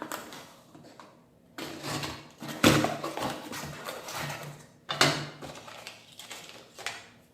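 Product packaging being handled and opened by hand: rustling and crinkling with a few sharper handling knocks, the loudest about a second and a half, two and a half and five seconds in.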